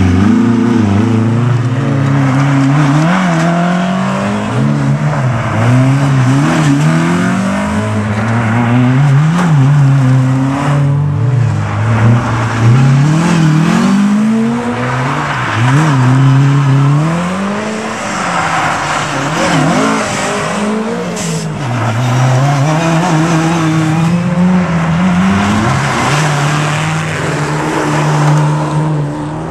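Rally cars driven hard through a snowy corner one after another, their engines repeatedly revving up and dropping as they accelerate and change gear.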